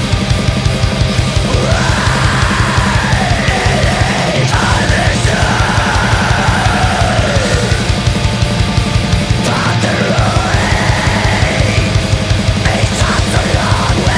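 Heavy metal music: fast, dense drumming under a high melody line that rises and falls.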